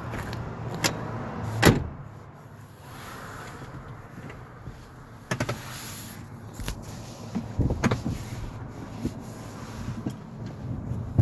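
A run of separate knocks and clicks from the van's interior fittings being handled, the loudest a sharp knock a little under two seconds in, over a steady low background hum.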